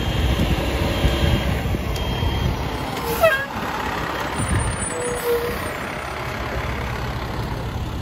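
Fire ladder truck's engine running with a steady low rumble, with faint high beeps coming on and off. A short falling squeal comes about three seconds in.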